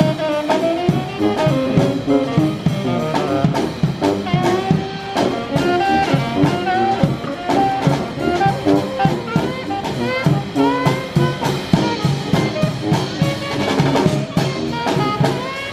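Jazz band playing an upbeat tune, with horns carrying the melody over a drum kit keeping a steady beat.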